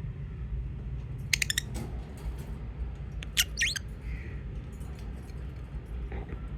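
Pet lovebirds chirping in two short bursts of quick, high chirps, about a second in and again past three seconds, over a steady low rumble.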